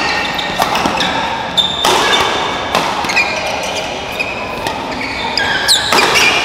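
Badminton rally on an indoor court: several sharp racket strikes on the shuttlecock, with shoes squeaking on the court floor in between.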